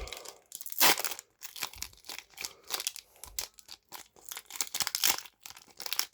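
Foil wrapper of a Pokémon card booster pack crinkling and tearing as it is opened by hand, in an irregular run of short crackles.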